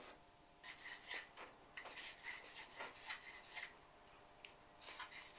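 Hand file working the edge of a clear perspex (acrylic) knife prototype, shaping its back curve: a quick run of short, even rasping strokes, a pause, then a few more strokes near the end.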